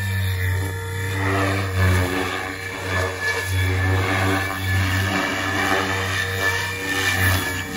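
SAB Goblin Kraken radio-controlled helicopter with a three-blade main rotor in flight: a steady low rotor drone with a faint high whine, the blade noise swelling and fading repeatedly as it manoeuvres.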